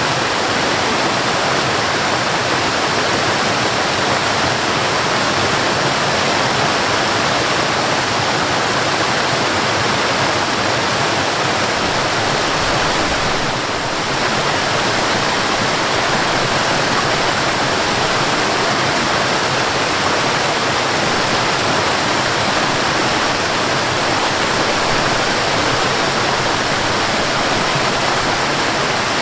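Steady, even rush of a waterfall, with a brief slight dip in level about halfway through.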